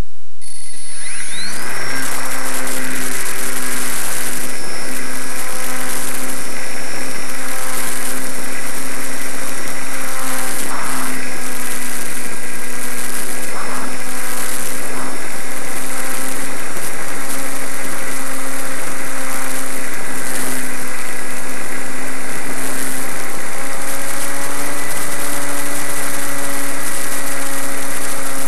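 A Zagi flying wing's motor and propeller, heard from an onboard microphone. It spins up with a whine that rises over about a second, then runs at a steady pitch through the flight, with a rushing hiss of air over the microphone.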